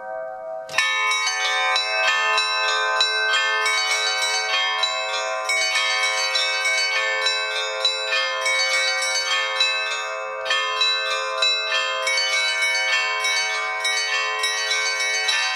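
Russian Orthodox bell ringing (zvon): a set of bells struck in a fast, dense pattern, many ringing tones overlapping and sustaining. A fresh round of strikes comes in about a second in, and the ringing thins briefly around ten seconds in before picking up again.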